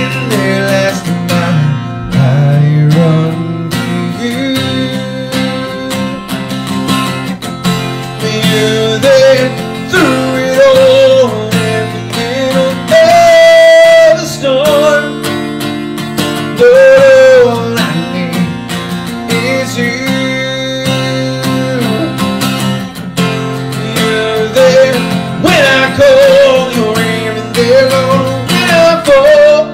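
Acoustic guitar strummed steadily, with a man's voice carrying a wavering melody over it in long held notes.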